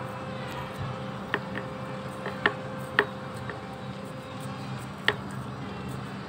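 Knife blade jabbing into hard, compacted potting soil to loosen it around a plant's base: a handful of short sharp clicks and scrapes, the loudest about three and five seconds in, over a steady background hum.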